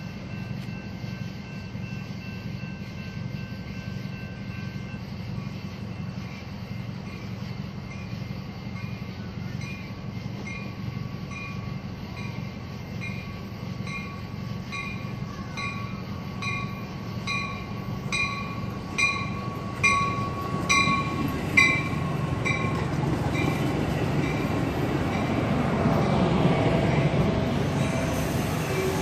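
Metra commuter train approaching and pulling into the platform. The low rumble of its diesel engine grows under a bell ringing about one and a half times a second. The bell gets louder, then stops about two-thirds of the way in, and the rumble of the double-deck cars rolling past swells near the end.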